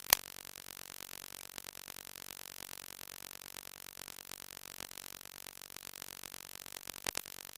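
Faint steady hiss like static, dotted with small clicks, with a sharp click just after the start and a couple more near the end.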